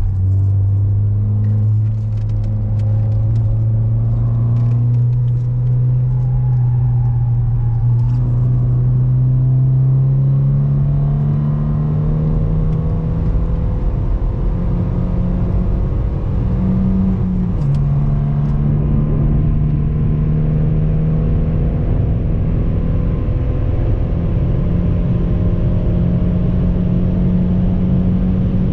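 Seat Ibiza's engine and road noise heard from inside the cabin while it is driven hard on a track. The engine note climbs slowly over the first half, jumps up and drops back about two-thirds of the way in, then holds steady. Light clicks come and go early on.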